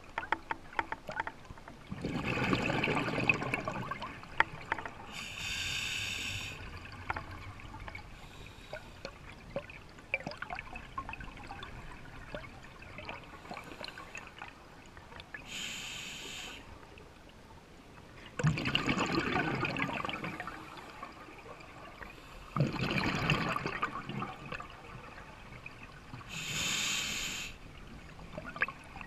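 A scuba diver breathing underwater through a regulator, a few slow breaths. Each inhalation is a short hiss of about a second, and each exhalation is a longer rush of bubbles.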